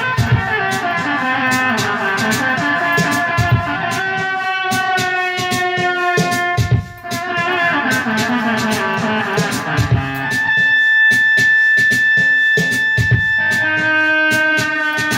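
Music: a guitar-led track with drums, which drops out briefly about seven seconds in and later holds one long chord for a few seconds.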